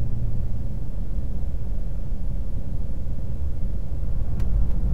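Steady low engine rumble heard from inside a truck cab in slow traffic, with a faint steady hum above it and two light clicks near the end.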